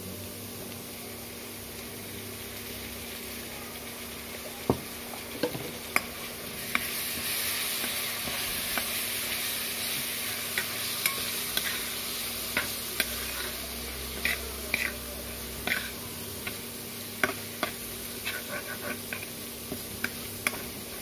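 Onions and ginger-garlic paste sizzling in hot oil in a black wok, with a metal spoon clicking and scraping against the pan as it is stirred. The sizzle grows louder about seven seconds in, and the spoon strikes come in quick irregular runs through the rest.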